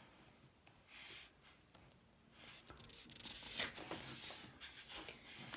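Faint rustling of paper pages being handled in an album's photo book: a short soft rustle about a second in, then a run of small rustles and light taps in the second half.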